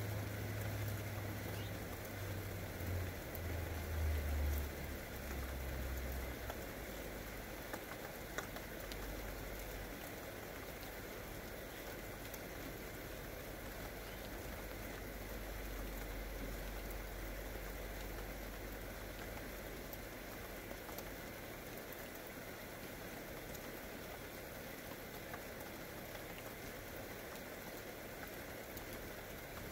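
Steady rain falling on grass and bare ground, an even hiss with a few sharper drop ticks. A low rumble sits under it for the first several seconds.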